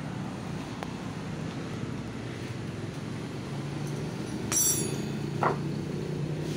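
Steel hand tools clink once sharply against each other on a concrete floor, with a brief metallic ring, and a duller knock follows about a second later. Under it runs a steady low engine-like hum.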